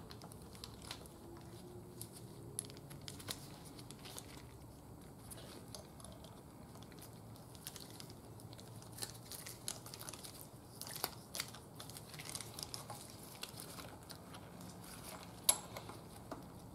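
Faint rustling of nitrile gloves and scattered light metal clicks as a high-pressure fuel pump is handled and fitted onto the engine, with one sharper click near the end.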